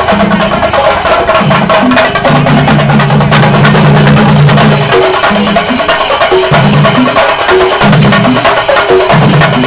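Chendamelam: a large group of chenda drums beaten with sticks in a loud, fast, dense rhythm, with low held tones coming and going over the drumming.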